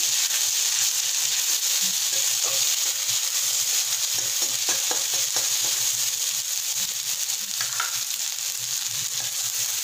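Garlic and dried red chilli paste sizzling in hot mustard oil in a wok, with a steady hiss. A metal spatula stirs and scrapes it, making scattered clicks against the pan, most of them in the middle of the stretch.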